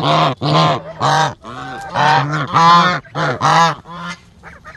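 Domestic white geese honking loudly, a quick run of short honks from several birds, some overlapping.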